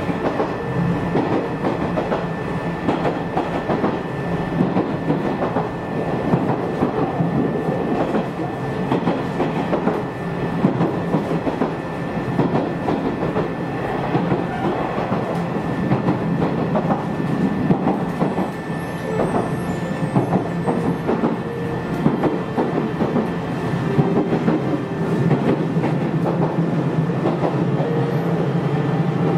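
Nishitetsu Amagi Line electric train running at speed, heard from inside the carriage: a steady rumble of wheels on the rails with irregular clicks and a thin, constant whine.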